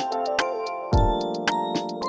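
Gospel/R&B beat played from a software instrument plug-in: sustained keyboard chords with a gliding synth lead, drum hits and a deep bass drop about a second in.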